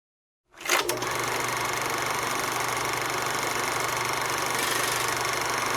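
A steady machine-like whirring with a constant low hum, starting with a brief louder burst about half a second in.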